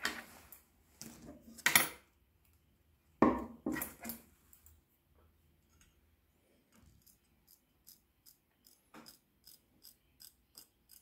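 Small scissors snipping cloth tape stuck on a steel knife blade, a quick run of short snips, about three a second, through the second half. Before that, a few louder knocks and rustles as the blade is picked up and handled.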